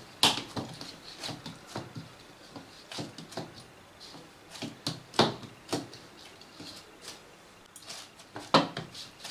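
Hands kneading a warm semolina-and-flour dough on a stainless steel plate: irregular soft pats and scrapes, with a handful of sharper knocks against the plate.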